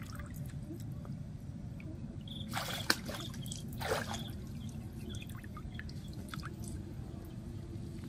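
Pond water dripping and sloshing as a wet cast net is gathered by hand, with two sharp splashes on the water surface about three and four seconds in.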